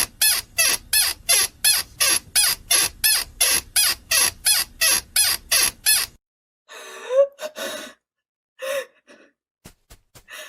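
A person panting in quick, even gasps, about three a second, that stop about six seconds in; then a couple of short breathy cries and a few faint clicks near the end.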